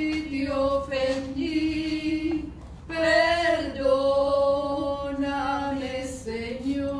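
A woman singing a slow hymn unaccompanied, holding long notes, with a short breath about two and a half seconds in.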